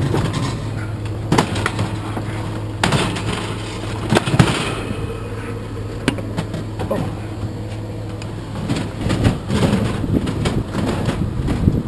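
Scattered metal knocks and clatters from scrap appliances being handled, over a steady low hum.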